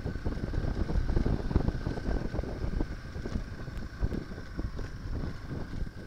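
Wind buffeting the microphone of a camera mounted on a moving Yamaha XT225 trail bike, over the bike's single-cylinder four-stroke engine running at riding speed, with uneven jolts from the tyres rattling over cobblestones.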